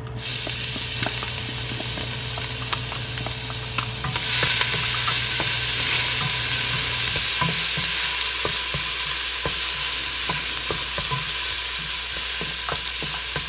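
Chopped ginger dropped into hot oil in a stainless steel pot sizzles at once, then keeps frying steadily while a wooden spatula stirs it, with small clicks and scrapes against the pot. The sizzle grows louder about four seconds in as the ginger is spread through the oil.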